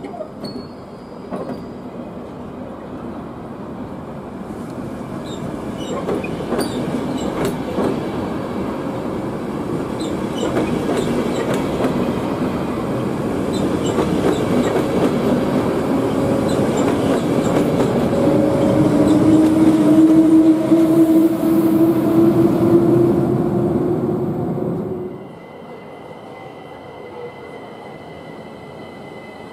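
ÖBB push-pull train of double-deck coaches, pushed by a class 1144 electric locomotive, passing close by. Its wheels click sharply over the rail joints, the rumble grows louder, and a whine from the locomotive rises in pitch as it goes by. The sound ends abruptly about 25 seconds in.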